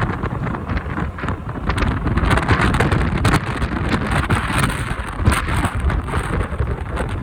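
Strong typhoon wind buffeting the microphone of a moving motorcycle: a loud, uneven, gusting rumble with rushing noise over the bike's running noise.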